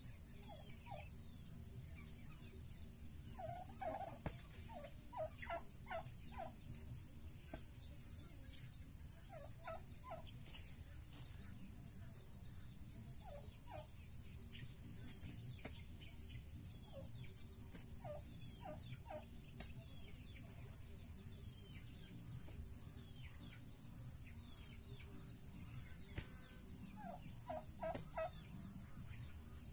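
Turkeys calling in short runs of three to five notes, about four notes a second, repeated several times, over a steady high insect drone, with a few faint high bird chirps.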